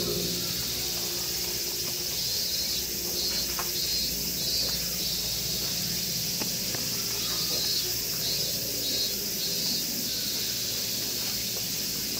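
Insects chirping in repeated short pulses, in groups, over a steady high outdoor hiss.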